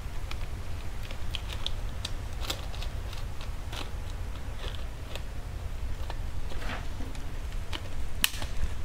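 Screwdriver working the terminal screws of miniature circuit breakers (MCBs) as wires are clamped in: scattered small clicks and scrapes of metal on plastic, with a sharper click near the end.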